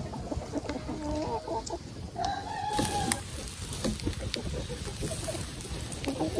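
Chickens clucking with short, repeated calls, and one brief held call about two seconds in.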